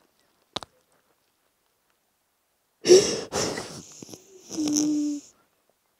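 A woman's loud breathy exhales, two quick ones about three seconds in, followed by a short held moan near the end.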